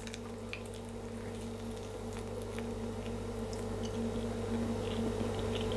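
Faint soft squelching and small clicks of a cooked chicken wing being handled and bitten into, over a steady low electrical hum.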